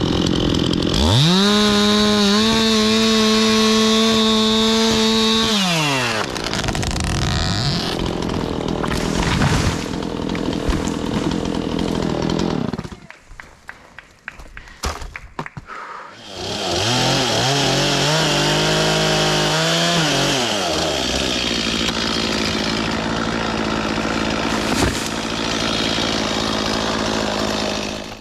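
Chainsaw revving up to full speed about a second in and holding a high steady note, then dropping into a rougher, noisier run. It falls away for a few seconds in the middle, with scattered clicks, then revs up again and runs on steadily.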